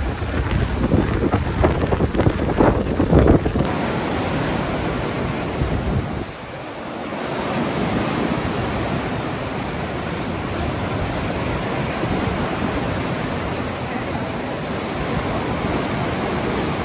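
Sea surf breaking and washing up a sand beach in a steady rush. Gusts of wind buffet the microphone in the first few seconds.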